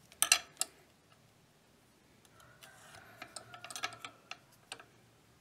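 A few sharp clicks of metal tools handled on a granite surface plate. Then, from about two seconds in, a steel scribe scratching short marking lines into layout-dyed steel, with light ticks as it is lifted and set down.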